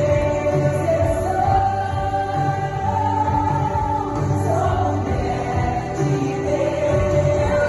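Portuguese gospel song with sung melody lines and long held notes over a steady bass accompaniment.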